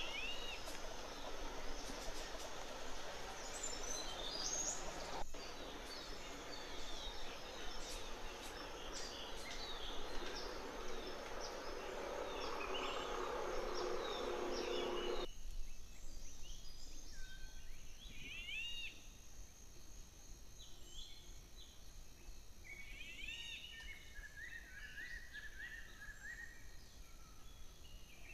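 Wild birds calling with short, high, arched chirps, scattered through, over a steady rushing background noise that cuts off abruptly about halfway through.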